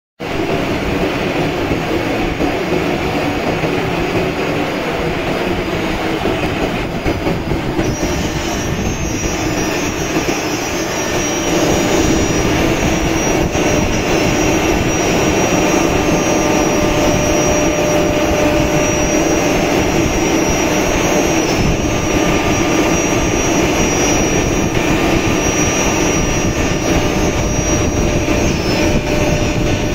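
Single-spindle CNC router (SEMAC SM 1325B1) running, its spindle milling a flat panel, a steady loud machine noise. A high whine joins about eight seconds in, and the noise grows louder about twelve seconds in, then holds steady.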